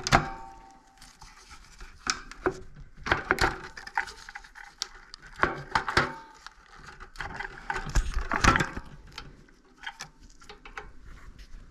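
Metal parts and tools being handled while an Antminer Z15 miner is taken apart: irregular clanks, clicks and scrapes, the first knock ringing briefly.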